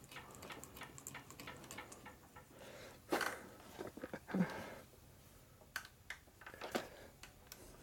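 Faint handling noise in a workshop: scattered light clicks and knocks, with two short breathy sounds a little after three and four seconds in.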